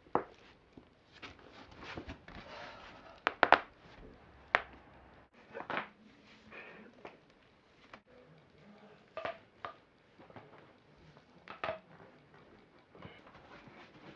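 Joints cracking: several sharp pops spread apart, the loudest a quick double crack about three and a half seconds in, with softer rustling between them.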